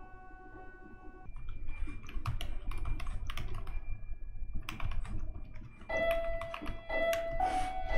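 Typing on a computer keyboard: quick runs of keystrokes starting about a second in, with a short pause near the middle.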